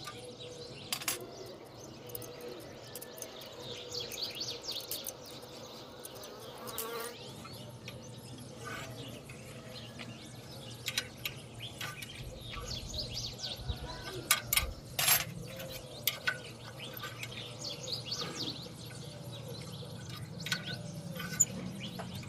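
Small birds chirping in short repeated bursts, with scattered sharp knocks; a low hum comes in about seven seconds in.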